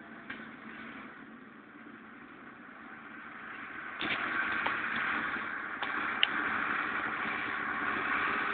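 SAME Silver 180 tractor's diesel engine running steadily under load while pulling a three-furrow plough. It jumps abruptly louder about four seconds in, as the tractor draws near, and a few light clicks come soon after.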